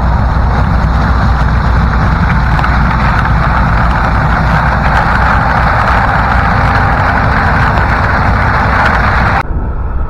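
A John Deere combine and a John Deere tractor pulling a grain cart, running together during corn harvest, make a steady, heavy machine drone that cuts off abruptly about a second before the end.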